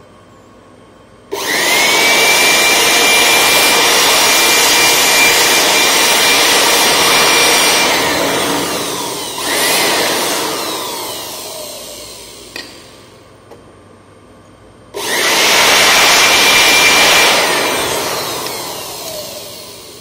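Handheld electric air blower switched on twice: its motor whine rises quickly and holds steady for about six seconds, then falls away as it spins down, with a brief blip partway. It runs again for a couple of seconds near the end and spins down once more.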